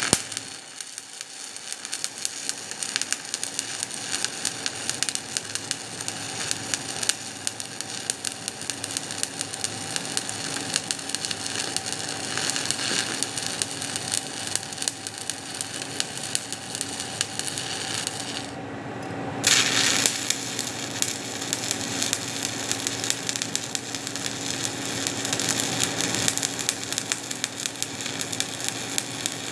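Shielded metal arc (stick) welding arc from a 1/8-inch 7018 electrode at 119 amps, DCEP, laying a cover pass on steel pipe: a steady crackling sizzle. The crackle drops out briefly about two-thirds of the way through, then comes back loud as the arc picks up again.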